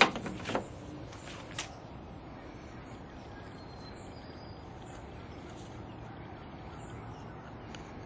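A sharp click and a short rattle of small parts, with another click about a second and a half later, as the oil control valve solenoid and tools are handled; a steady low background noise underneath.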